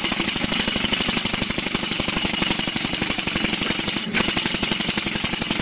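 Hand-held demolition hammer (jackhammer) running, a fast steady rattle of rapid blows with a high whine, broken briefly about four seconds in.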